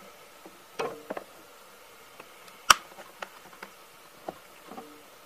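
DeWalt 20V battery being pushed down onto a battery adapter in the plastic battery well of a Milwaukee M18 vacuum: light plastic clicks and scrapes, with one sharp click a little under halfway through as it latches.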